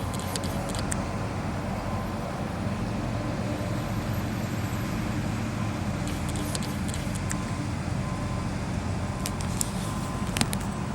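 An engine running steadily at a low, even drone, with a few faint clicks over it.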